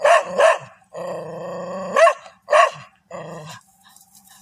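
A dog barking: four sharp barks in two pairs, with a longer drawn-out growl between them and another after them. It goes quiet near the end.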